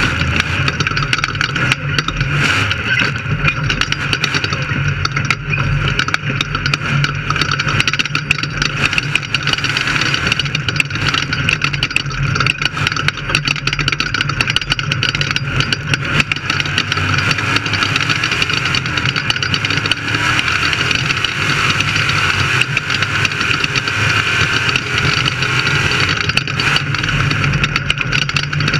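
Off-road race car's engine running hard at a fairly steady pitch, with dense rattling and jolting noise over it.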